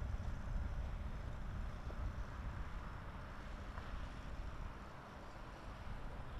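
Wind buffeting the microphone: an uneven low rumble with a faint steady hiss behind it.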